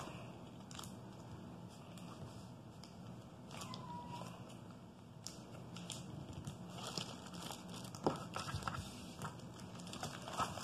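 Plastic wrapping crinkling and rustling as it is handled, with scattered light clicks and crackles and one sharper knock about eight seconds in.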